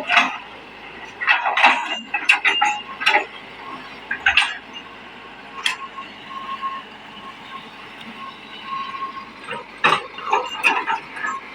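Excavator working, with a steady whine under bunches of sharp metallic clanks that come in irregular groups, the loudest near the start and about ten seconds in.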